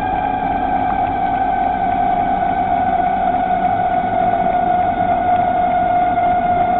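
Electric bicycle motor whining steadily while riding, its pitch slowly falling, over a rushing of wind and tyres on pavement.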